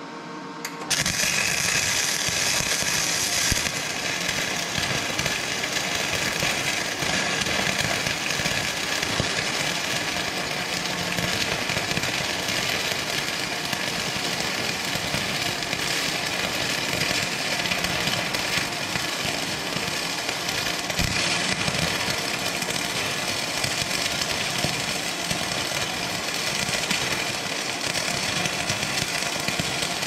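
Flux-core MIG welding arc from a Lincoln Electric Power MIG 210 MP: a steady, dense crackle and sizzle that starts about a second in, is brightest over its first few seconds, runs unbroken for nearly half a minute and then cuts off suddenly.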